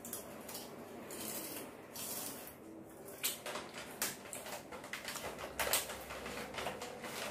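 Plastic cap of an e-liquid bottle being twisted, a soft scraping rustle in the first two seconds, then a run of faint, irregular light clicks and taps from about three seconds in.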